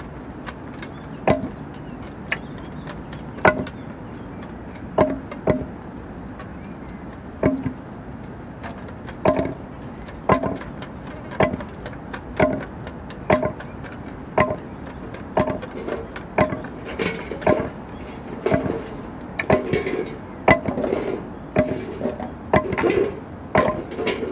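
Acoustic noise ensemble striking found objects: sharp knocks, each with a short pitched ring. They come irregularly at first, settle to about one a second, then grow denser and louder with overlapping hits in the second half.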